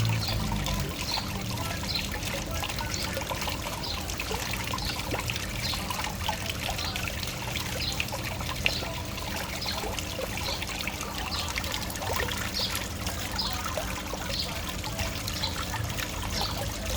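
Waterfall water flowing and splashing steadily, with many small trickling drips and splashes over an even rush.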